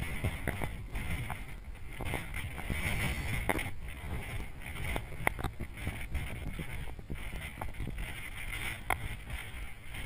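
Wind buffeting the camera's microphone: an uneven low rumble that rises and falls, with a few sharp clicks scattered through it.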